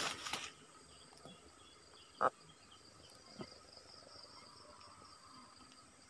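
Faint, steady buzz of insects in grass. A short rustling noise comes at the very start, then one sharp, brief call note from the caged decoy bird about two seconds in and a fainter one about a second later.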